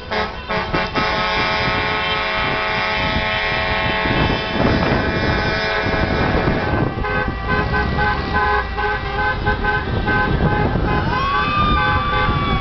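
Many car horns honking at once in celebration: several long held blasts overlapping for the first few seconds, then rhythmic short beeps from about halfway, over the noise of traffic.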